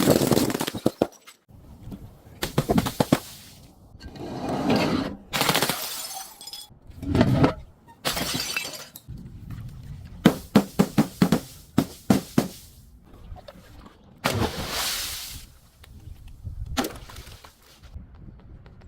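Glass bottles shattering and being crushed, in a series of separate crunching bursts with a quick run of sharp cracks about halfway through.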